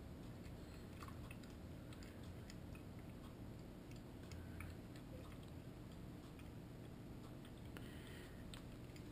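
A cat pawing at and lapping from the water stream of a Drinkwell Platinum pet fountain: faint scattered wet clicks and small splashes, over the fountain's steady low hum.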